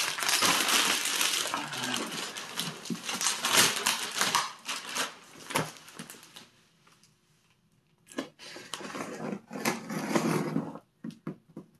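Plastic shipping bag crinkling and rustling loudly as it is pulled off a cardboard box, dying away after about five seconds. After a short quiet spell, scissors cut into the box's packing tape, with cardboard scraping and a few clicks near the end.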